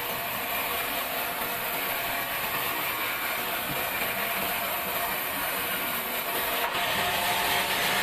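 Sawmill band saw running steadily as an old pine board is fed through the blade and ripped, with a faint click near the end.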